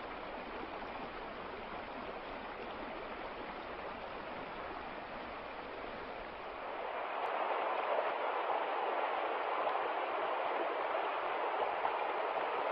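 Rushing river water, a steady even rush that turns louder and brighter about seven seconds in.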